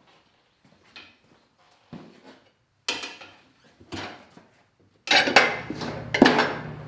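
Metal tools clinking against each other about once a second, then, from about five seconds in, louder continuous metallic clatter over a low steady hum.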